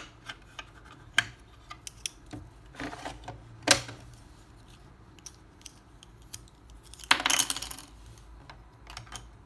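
Hard plastic clicks and clatter from a LeapFrog Count Along Cash Register toy and its play coins being handled. There is one sharp click a little past the middle and a short rattling clatter of coins near the end.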